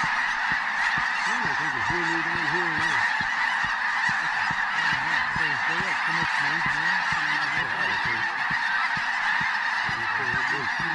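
Dense, continuous chorus of snow geese calling, many high yelping calls overlapping without a break, with lower sliding calls mixed in.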